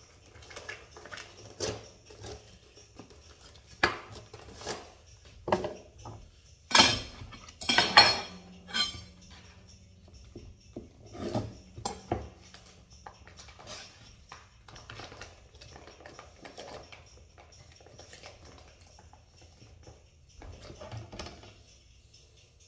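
Metal baking tray and wire rack clattering and clinking as ribs are handled and laid on them. It is an irregular string of knocks, loudest in a cluster about a third of the way in, then lighter taps.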